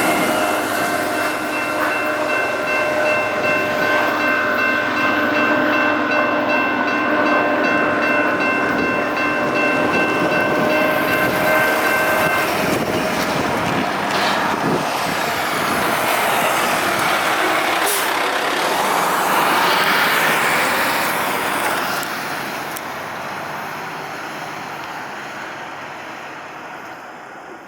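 BNSF intermodal stack train rolling past on the main line, its cars rumbling and rattling over the rails. A sustained tone of several notes sounds over it for about the first twelve seconds, then cuts off. The train sound fades steadily over the last several seconds.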